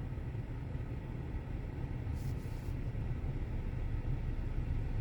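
2017 Kia Sorento idling with the air conditioning running: a steady low rumble heard inside the cabin, with a brief soft hiss about two seconds in.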